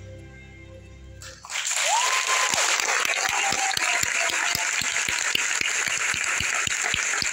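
Stage music fades out, then about a second and a half in a theatre audience breaks into loud, sustained applause. Early in the clapping a short whistle rises, holds and falls.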